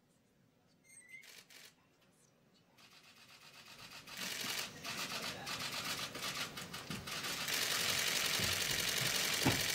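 Many camera shutters clicking rapidly: a few clicks about a second in, then a dense flurry that builds from about three seconds in and keeps on.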